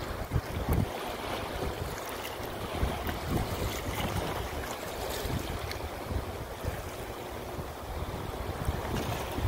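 Wind gusting on the microphone over small waves lapping at a rocky lakeshore.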